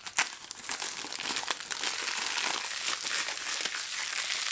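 Thin plastic shrink-wrap being peeled and crinkled off a plastic CD jewel case: a sharp crackle just after the start, then steady crinkling rustle.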